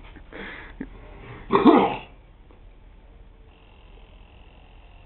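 A short vocal outburst about a second and a half in. Near the end comes a thin, steady hiss lasting about two seconds as he breathes in through a nitrous oxide demand-valve mouthpiece.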